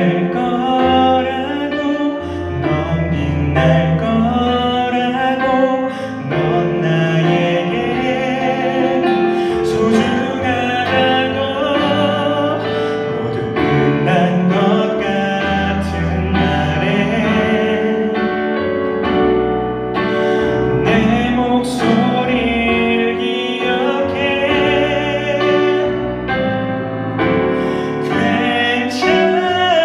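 A slow ballad sung with vibrato over piano and band accompaniment.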